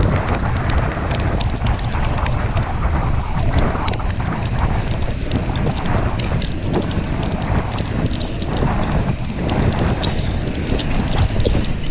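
Wind buffeting the camera microphone while riding a mountain bike, a steady low rumble. Many small clicks and rattles are scattered through it.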